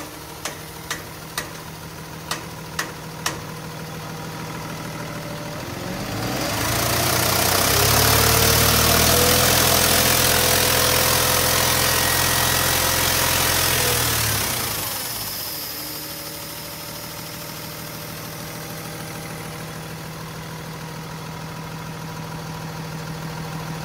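Cummins ISB 6.7-litre diesel engine idling, then revved up about six seconds in. It is held at high revs for about eight seconds and drops back to a steady idle. A run of sharp clicks, about two a second, sounds over the idle in the first few seconds.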